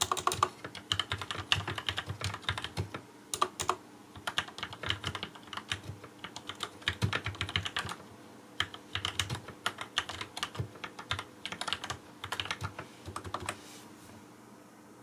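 Typing on a Cherry G81 1800 keyboard retrofitted with lubed Gateron Yellow linear switches on a stainless steel plate. The keystrokes come in quick runs with short pauses and stop near the end.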